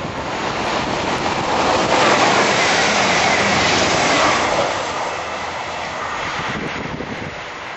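Express passenger train passing through the station at speed: a rush of wheel and air noise that swells about two seconds in, stays at its loudest for a couple of seconds, then eases away.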